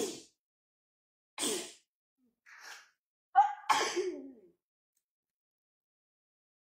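A woman sneezing into her hand: four short bursts within the first four and a half seconds, the last the loudest.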